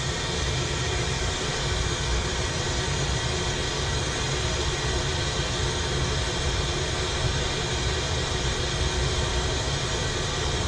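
Glassblowing bench torch burning with a steady rushing hiss while a glass piece is turned in its flame.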